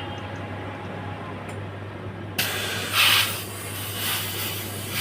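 Compressed air hissing in bursts from an air hose held to an electric bike's tyre valve, starting about halfway through with the loudest burst about three seconds in. The air is escaping instead of filling the tyre, because the hose fitting won't hold on the valve.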